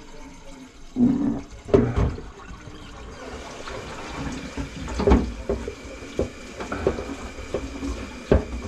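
Water splashing and gurgling in a kitchen sink and its drain, in irregular bursts. A steady rush of running water joins in about three seconds in.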